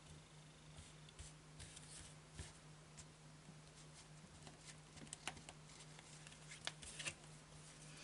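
Near silence with faint, scattered ticks and rustles of oracle cards being handled as one is drawn from a fanned-out deck, over a steady low hum.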